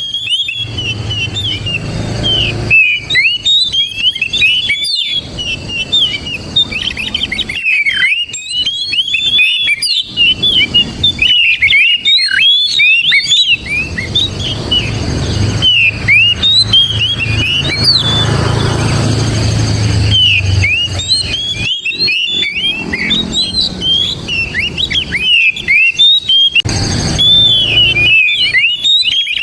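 Oriental magpie-robin singing a loud, continuous stream of rapid whistled and chirping phrases broken by brief pauses, with a low rumble underneath at times.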